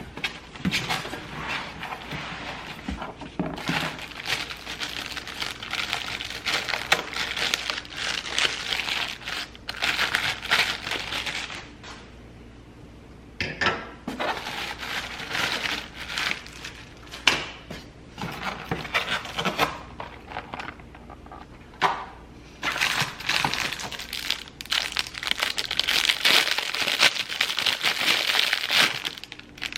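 Crinkling and crumpling of packaging being handled, in irregular bursts a few seconds long with short pauses between them.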